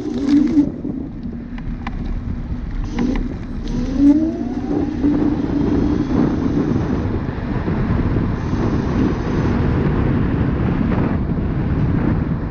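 Wind buffeting the microphone over the steady tyre and road noise of a Dualtron Thunder electric scooter riding on asphalt. There are a few sharp knocks in the first few seconds and a brief rising whine about four seconds in.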